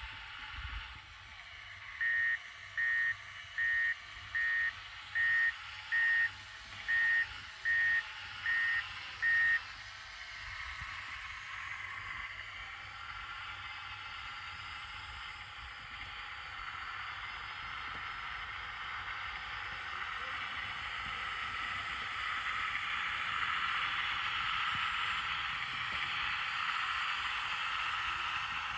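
RC Pistenbully snow groomer model sounding about ten evenly spaced reversing warning beeps, a little more than one a second. It then drives through snow with a steady motor whine that grows louder near the end.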